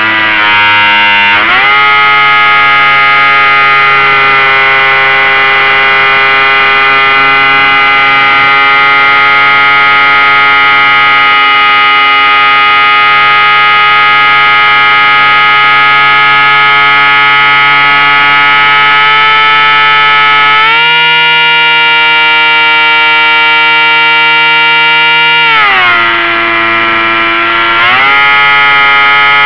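Electric motor and propeller of a SeaMaster RC seaplane in flight, a steady loud whine that changes pitch with the throttle. It rises about a second and a half in, steps higher near the end, drops briefly and comes back up.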